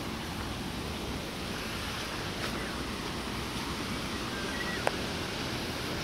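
Steady rushing outdoor noise of running water and wind, with a couple of faint short whistles about halfway through and a single sharp click near the end.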